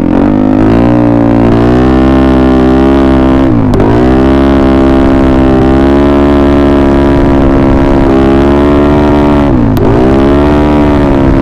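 Yamaha Mio Sporty scooter, bored to 175cc, with a loud aftermarket pipe, running at high revs under hard throttle on the move. The revs drop sharply and climb back twice, about four and ten seconds in.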